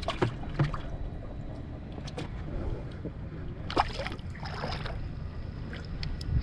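Water lapping and trickling against the hull of a small fishing boat over a steady low rumble, with a few scattered light knocks and clicks.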